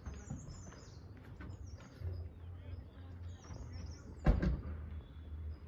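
Small birds chirping in high, quick falling trills over a steady low rumble, with one sharp thump about four seconds in.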